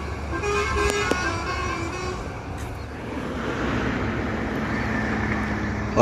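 Bus 'telolet' musical horn of the Basuri type playing a short tune of a few stepping notes for about the first two seconds. After that comes the steady noise of bus engines and tyres on the road.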